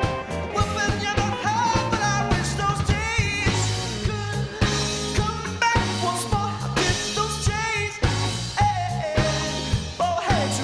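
Live rock band playing a song: electric guitar, keyboards and drums on a steady beat, with a voice singing.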